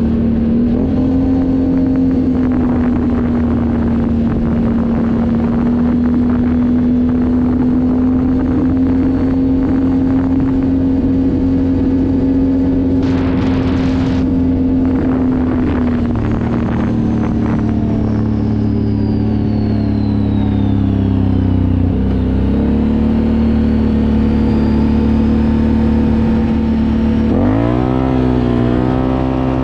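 Can-Am Outlander 1000R ATV's V-twin engine running hard at a nearly steady pitch, the CVT clutch holding the revs constant under throttle. The pitch dips around 22 seconds in, then rises quickly near the end as the throttle opens again.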